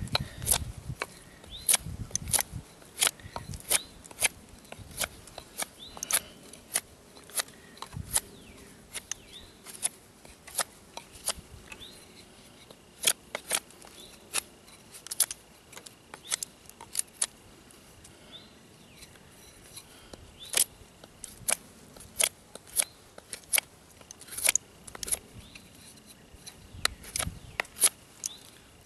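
Knife blade carving a wooden bow-drill spindle: a long, irregular series of short, sharp cuts, about one to two a second, with a few seconds' pause past the middle.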